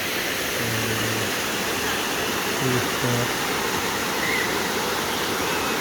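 Waterfall water rushing steadily, an even hiss of falling and flowing water.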